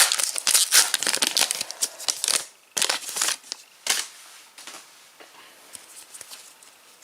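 A Panini Adrenalyn XL trading-card pack wrapper being torn open and crinkled, with dense crackling for about two and a half seconds. Two shorter crinkles follow about a second apart, then only faint rustling of the cards being handled.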